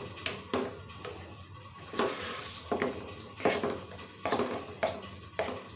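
A spoon scraping and knocking against a black metal wok, stirring pasta through thick white sauce, in about nine uneven strokes.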